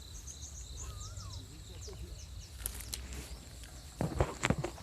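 Outdoor morning ambience: insects chirping high and fast, fading out early, and a bird's single short call, rising then falling, about a second in. Near the end, a quick cluster of sharp knocks and rustles is the loudest sound.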